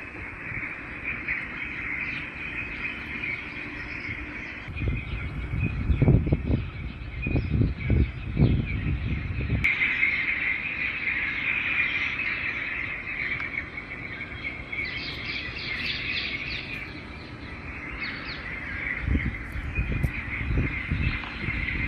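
Steady outdoor chorus of chirping birds and insects, with a brief patch of higher chirps partway through. A low rumble swells up in the middle and again near the end.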